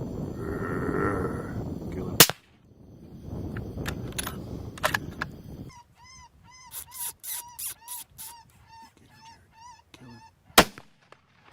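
Two rifle shots, the first about two seconds in and the second near the end, each a single sharp crack. Between them, a rapid run of short, arched yelps from an animal, about two a second.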